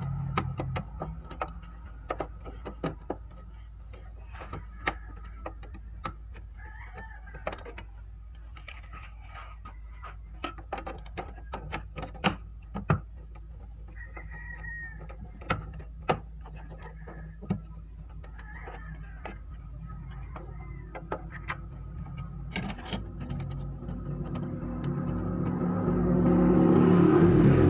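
Scattered sharp clicks and taps of plastic parts being handled inside an opened Brother DCP-T700W inkjet printer, over a low steady hum. A low rumble swells over the last few seconds and becomes the loudest sound.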